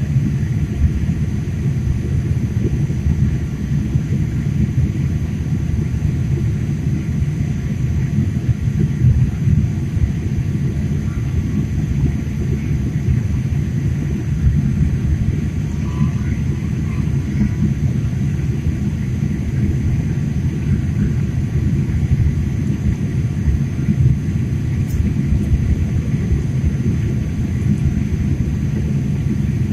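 Steady low rumble of an airliner in flight, heard from inside the passenger cabin: engine and airflow noise, even and unchanging.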